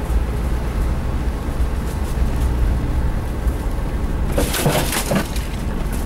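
Suzuki Jimny driving along a rough dirt track, heard from inside as a steady low rumble. About four and a half seconds in, a short burst of crackling and rustling rises over it.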